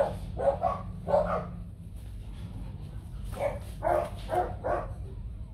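Bac Ha dogs giving short barks and yips: a quick run of about four near the start, then another run of several about three and a half seconds in.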